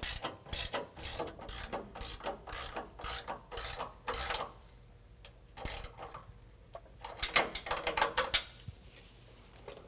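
A 9/16 ratcheting wrench clicking in repeated strokes, about three a second, as it tightens a nut on the air bag's upper bracket bolt. After a lull, a quicker run of clicks comes near the end.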